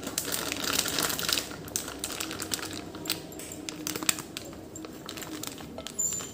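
Stainless-steel mesh sieve of gram flour shaken over a glass bowl: rapid, irregular light tapping and rattling as the flour is sifted through.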